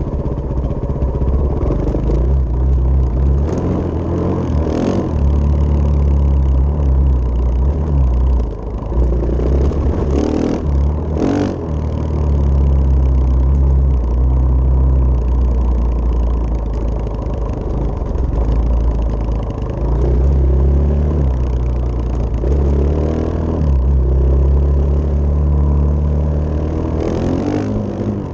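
Single-cylinder four-stroke engine of a KTM 500 dirt bike running on the move, heard from on board. Its revs rise and fall several times as the rider rolls the throttle on and off, over the gravel road.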